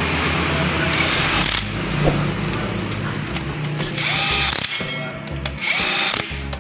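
Background music with a power tool in the workshop, spinning up in short rising whines, twice in the second half.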